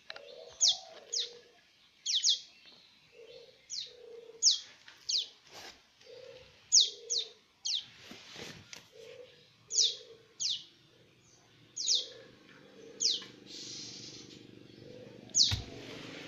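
Caged bar-winged prinia (ciblek) giving short, sharp, high chirps, each falling in pitch, roughly one or two a second. A low hooting note repeats underneath. There is a single bump near the end.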